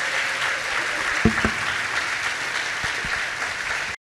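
Audience applauding, with two short low thumps a little over a second in; the applause cuts off suddenly near the end.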